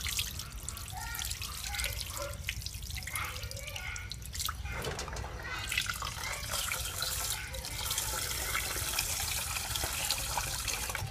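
Tap water running into a metal pot and splashing onto a concrete sink while rice is rinsed, the cloudy rinse water poured off through the hand. The splashing gets fuller about halfway through.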